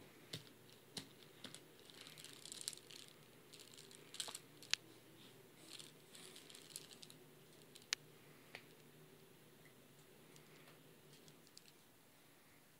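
Faint clicking and rattling of a chain of plastic baby link rings being handled and mouthed, with scattered sharp clicks, the loudest about five seconds in and again about eight seconds in.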